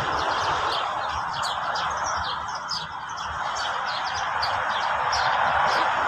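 Many small songbirds chirping and trilling in quick, overlapping high calls, over a steady rushing hiss.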